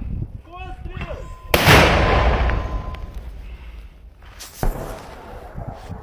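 Mortar firing: a single loud blast about a second and a half in, fading out over the next second or so. A smaller sharp bang follows about three seconds later.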